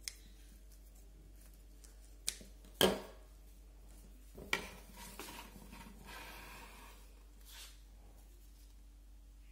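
A few sharp clicks and clacks of small metal bonsai scissors as bougainvillea branches are trimmed, the loudest about three seconds in, followed by light rustling of leaves and stems being handled.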